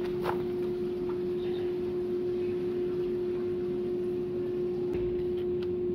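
A motor humming steadily at one pitch, with a few faint clicks.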